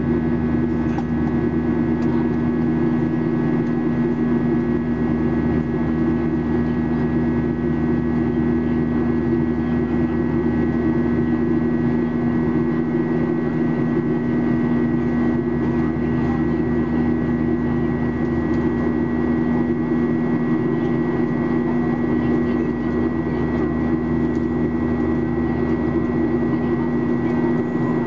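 Steady cabin drone of a Boeing 737-800 in flight, heard from inside the cabin over the wing: its CFM56-7B turbofan engines and the rushing airflow, with a steady low hum and a thin high whine above it.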